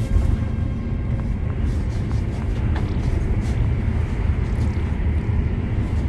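Steady low rumble of a Scania K410 double-decker coach in motion, heard from the front of the upper deck: road and running noise with no distinct events.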